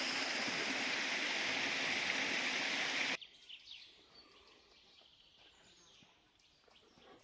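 A steady rushing noise, like running water, that cuts off suddenly about three seconds in, leaving quiet forest ambience with faint bird chirps.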